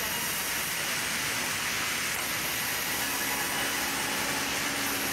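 Large vertical band saw running and ripping a wooden plank, a steady noise throughout, with a low hum joining about three seconds in.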